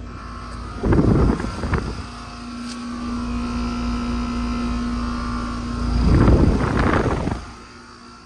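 Metra commuter train going past, a steady hum holding through the middle, with two loud rumbling surges about a second in and again near the end.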